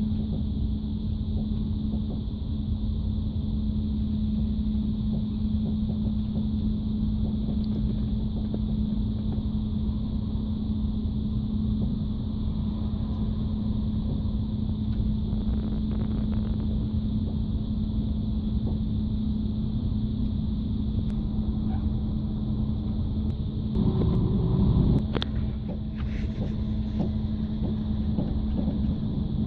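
Running noise of a TGV high-speed train heard from on board: a steady rumble with a constant low hum, swelling briefly about 24 seconds in.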